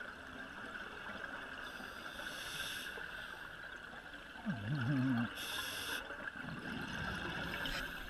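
Faint underwater ambience picked up through a camera housing: a steady hiss with two short rushes of divers' exhaled bubbles. A brief wavering low hum sounds about halfway through.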